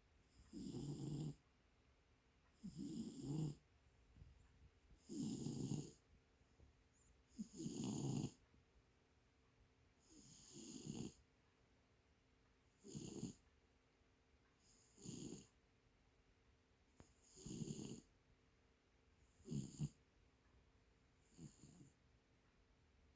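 A sleeping cat snoring softly, about ten snores in a steady rhythm, one every two seconds or so, the last few shorter and fainter.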